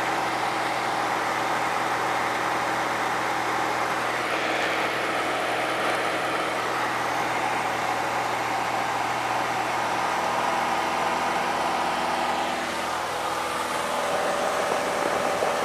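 Cabin noise of a Cessna single-engine light aircraft in cruise: the piston engine and propeller drone steadily under a wash of rushing air.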